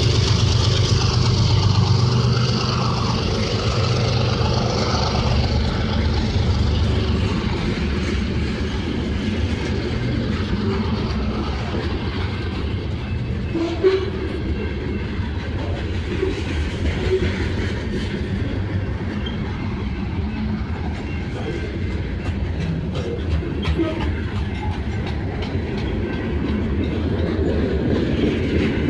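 CSX train passing close by. Its locomotive's low diesel engine sound is strongest for the first few seconds, then the railcars roll past with a steady rumble and scattered wheel clicks over the rail joints.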